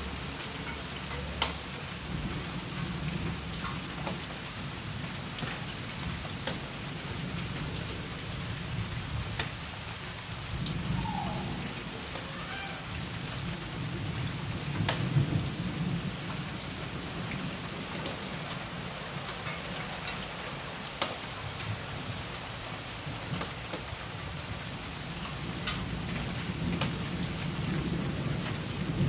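Steady rain falling, with scattered sharp drop ticks. Low rolls of thunder swell about a third of the way in, again around halfway, and build once more near the end.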